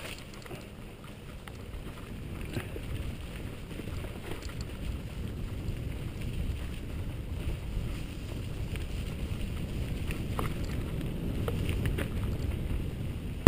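Wind buffeting the microphone of a camera riding along a dirt forest trail: a steady low rumble that slowly grows louder, with scattered small clicks and rattles.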